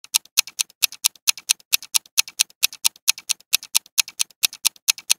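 Countdown timer sound effect: a clock ticking quickly and evenly, about five ticks a second.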